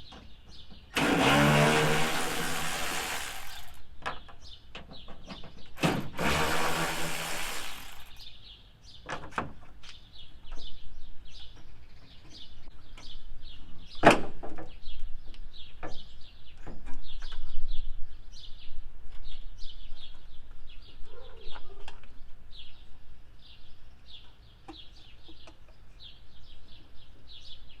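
Cordless powered wrench spinning out the 8 mm bolts that hold a truck taillight, in two runs of about three and two seconds. Clicks and a knock of the tool and the light follow, with birds chirping.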